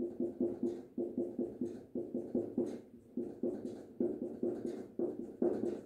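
Rapid writing strokes, several a second, as a pen or marker writes out figures on a board or page.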